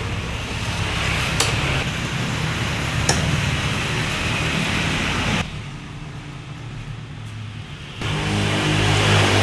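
Yamaha Vixion's single-cylinder, liquid-cooled engine running, with a blown cylinder-head gasket that is letting coolant spurt out of the head. It drops back quieter about halfway through, then gets louder again as it is revved near the end.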